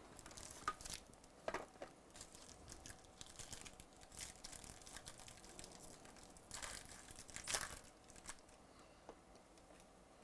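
Trading-card box packaging being opened by hand: quiet rustling, crinkling and tearing of cardboard and wrapper. Louder bursts come about a second in and again around seven seconds in.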